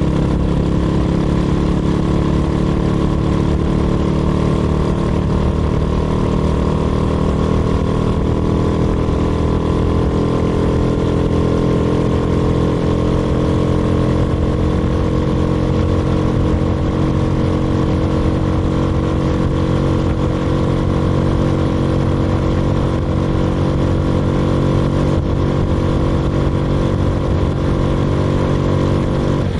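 The motorized beer-crate kart's small engine running hard on the road, its blown head gasket freshly replaced. Its pitch rises slowly over roughly the first half as the kart gathers speed, then holds steady.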